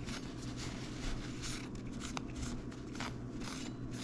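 Paper napkin rubbing against the base of an aluminium CPU cooler heatsink in quick, irregular strokes, about three or four a second, wiping off old thermal paste.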